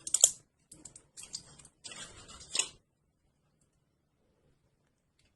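A medicine capsule being opened by hand: a run of quick, dry clicks and scratches for about three seconds, then it stops.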